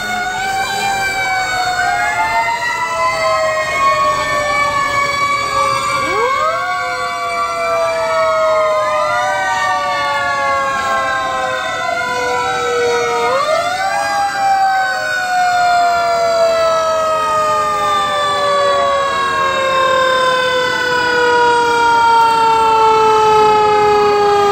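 Several fire engine sirens wailing at once, overlapping and out of step. Each rises quickly to pitch and then falls slowly over many seconds.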